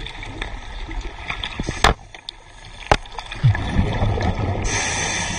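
Muffled underwater noise from a diver's camera, with two sharp clicks about a second apart, some low gurgling, and a burst of steady hiss near the end.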